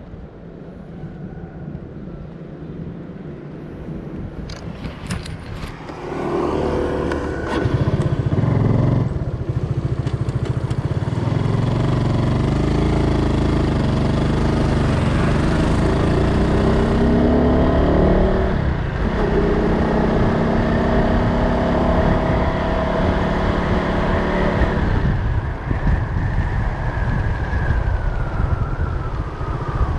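Motorbike engine running in street traffic. It gets much louder about six seconds in, then rises in pitch and drops back several times as it accelerates.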